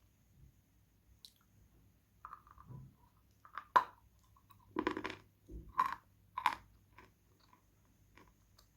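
A piece of Khrapovsky chalk being bitten and chewed close to the microphone. There are four loud, sharp crunches about a second apart in the middle, then a few softer chews near the end.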